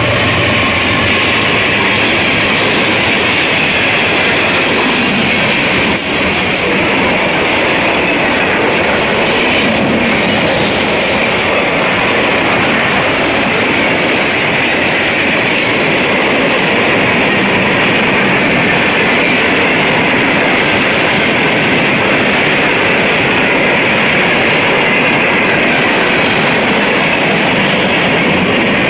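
CSX freight train rolling past close by, the locomotive and then a string of covered hopper cars: a loud, steady rush and rumble of steel wheels on the rails. Sharp high squeaks and clicks are scattered through roughly the first sixteen seconds, then the sound settles into a steadier rumble.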